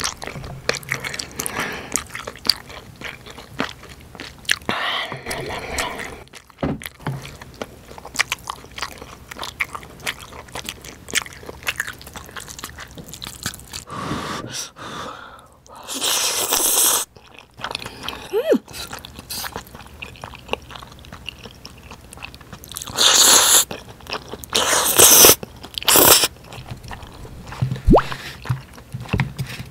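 Close-up eating sounds: chewing spicy stir-fried ramen noodles and chewy rice cakes, with several loud slurps of noodles in the second half.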